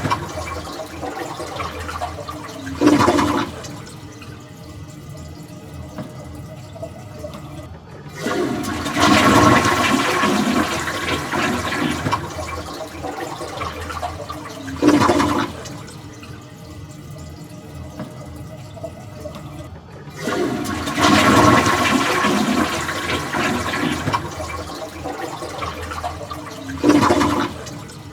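Toilet being flushed twice, about 8 s and 20 s in: each time a sudden rush of water that slowly tapers off, followed a few seconds later by a short, louder surge of water, also heard about 3 s in.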